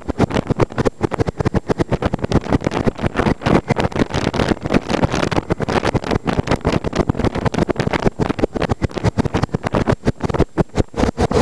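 Motorcycle ride heard from an onboard camera: wind rushing over the microphone with the engine running underneath, the loudness fluttering rapidly and irregularly.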